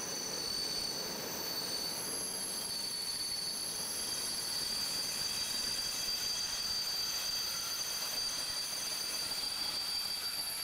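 Container freight train's wagons rolling past, a steady noise of wheels on rail with high, steady wheel squeal ringing over it.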